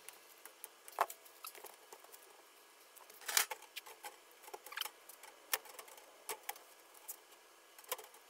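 Irregular small clicks, ticks and light rattles of steel wire-mesh panels and plastic zip ties being handled during assembly, with no steady rhythm.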